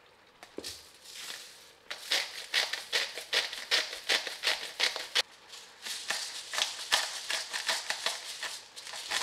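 Hand-held salt and pepper grinder twisted over the pan, making rapid gritty clicking crunches in two long bouts: the first from about two to five seconds in, the second from about six seconds to the end. A soft knock comes just after the start.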